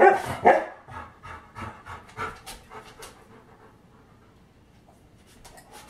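A large dog panting rapidly in quick, even breaths that fade away after about three seconds and return briefly near the end. A short loud sound comes at the very start.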